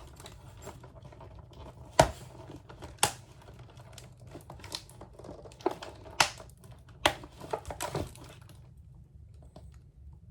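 Hard plastic pieces of a doll's display stand clicking and knocking as they are handled, with light rustling between. There are about eight sharp clicks over six seconds, and then it goes quiet near the end.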